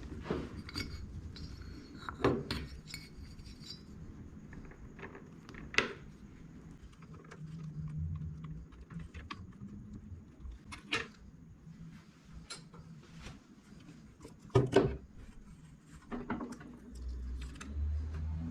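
Metal tools and engine parts clinking and knocking together during hand disassembly of a two-stroke motorcycle engine. There are scattered separate clinks, with the sharpest about six seconds in and a double knock near fifteen seconds.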